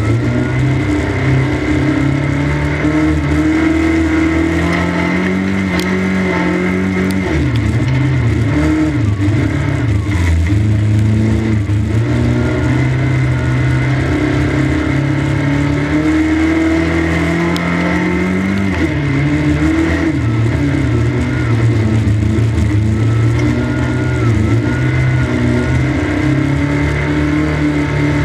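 A 1300 stock car's engine at racing speed, heard from inside the cockpit. The revs climb steadily, then drop sharply twice, about seven and nineteen seconds in, and build again each time.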